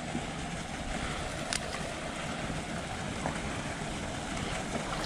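Water swirling and sloshing around a person's legs as they wade with small steps across a flooded, running ditch, with a sharp click about a second and a half in.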